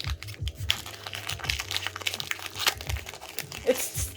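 Crinkling of a foil Pokémon booster-pack wrapper and cards being handled, with many quick light clicks and rustles.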